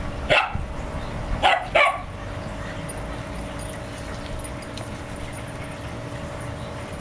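Shiba Inu barking three times in short sharp barks: once near the start, then two in quick succession about a second and a half in.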